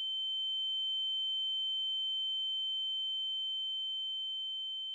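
A single steady, high-pitched electronic tone, like a pure test tone or an edited-in ear-ringing effect, sounding alone with no other sound behind it.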